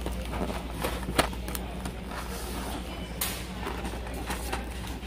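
Cardboard pasta boxes handled on a cardboard shelf display: a series of light taps and scrapes, with a sharper knock about a second in, over a steady low hum.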